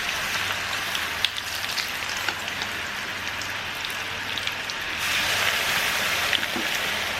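Pointed gourd (parwal) pieces coated in besan and rice flour deep-frying in hot oil: a steady sizzle with scattered crackles, growing louder about five seconds in.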